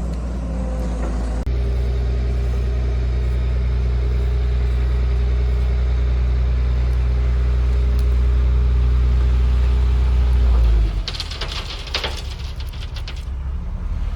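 Kubota tractor engine running steadily, then dropping in pitch and level about eleven seconds in. A few sharp knocks and rattles follow.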